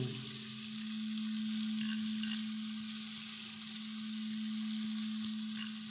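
Wooden rainstick tipped upright, its pellets trickling down in an even, crackly hiss that fades near the end. A crystal singing bowl's single steady tone rings underneath.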